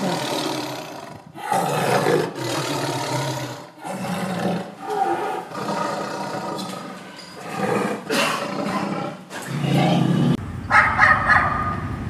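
A tiger roaring over and over, in long rough roars of two to three seconds each with short breaks between them. Near the end a dog starts barking and yelping in quick, sharp calls.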